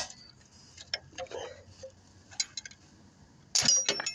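Metal clicks and clinks of a 13 mm wrench working on the cambelt tensioner bolt as it is loosened. There is a sharp click at the start and a louder, slightly ringing clatter of metal near the end.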